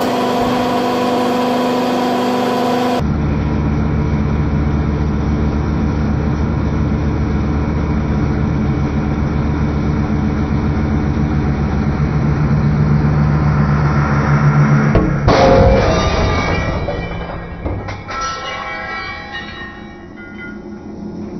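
Hydraulic press running with a steady low hum as its ram bears down on a small cast-iron anvil. About fifteen seconds in the anvil gives way with a sudden loud crack, a second crack follows a couple of seconds later, and metallic ringing dies away after it.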